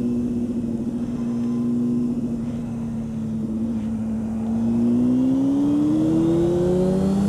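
Honda CB600F Hornet's inline-four engine running at a steady note under way, then rising in pitch as the bike accelerates hard for the last few seconds while merging onto a dual carriageway.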